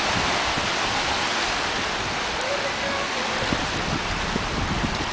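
Small waves washing over the sand at the shoreline, a steady hiss of surf.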